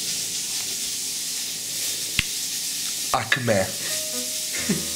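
Steady sizzle of food frying in hot lard, with a single sharp click about two seconds in.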